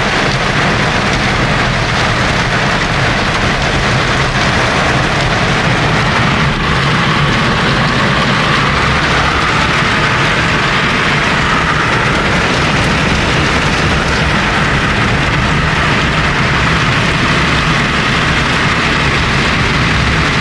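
Steady noise inside a small car driving through a heavy downpour: a low engine and road rumble under the rush of rain on the roof and windscreen.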